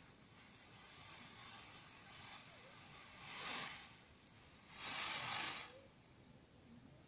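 Peacock rattling its fanned train in courtship display to a peahen: two short bursts of dry rustling, about three and a half and five seconds in, the second the louder.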